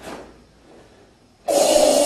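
A karateka's loud, forceful breath out through a tensed throat, the hard exhalation of kata breathing. It starts suddenly about one and a half seconds in and lasts about a second.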